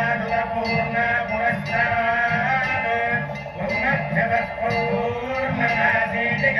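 Devotional aarti music with singing, and metal bells ringing throughout.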